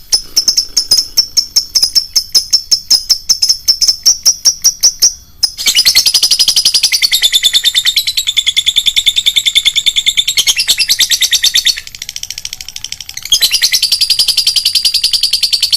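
Lovebird's long chattering trill (ngekek), a run of rapid high chirps at about eight a second. It breaks briefly about five seconds in, resumes as denser chatter, and dips quieter for a moment near the twelfth second before picking up again.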